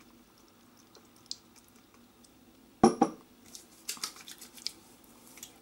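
Aftershave lotion bottle handled on a hard bathroom surface: one sharp clink-like knock with a brief ring a little past the middle, followed by a few light clicks and taps.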